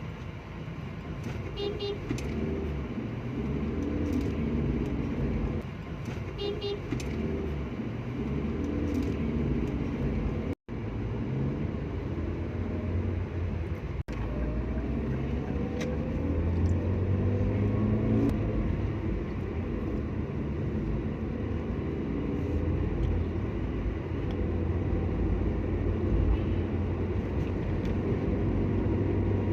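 Car engine and road noise heard from inside the cabin while driving, the engine pitch rising and falling with speed. Two brief high beeps sound within the first seven seconds.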